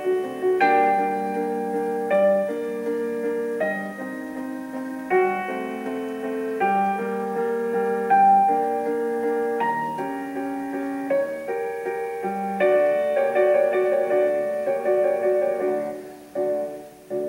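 Piano music: a slow run of held chords, changing about every second and a half, then quicker notes that fade out near the end.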